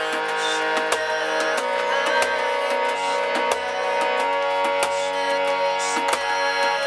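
Music: sustained drone-like tones over a low drum beat that falls about every 1.3 seconds, with light percussive clicks throughout.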